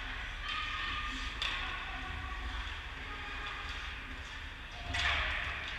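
Ice hockey rink sound: skate blades scraping and hissing on the ice, with the clatter of sticks and puck, over a steady low rumble. The loudest scrape comes about five seconds in.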